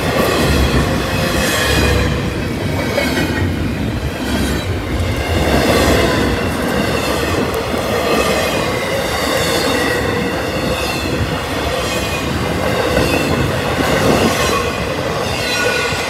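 Intermodal freight cars carrying highway trailers rolling past, steel wheels on the rails with a steady rumble and clatter and a faint wavering squeal over it.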